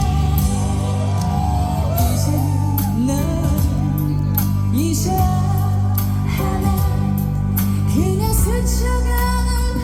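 A woman singing a slow song with vibrato over an amplified backing track with bass and drums.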